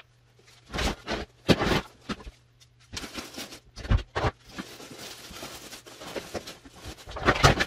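Hard plastic storage totes being handled: a snap-on lid pulled off and bins knocked and scraped, giving a few separate clunks with scraping and rustling in between.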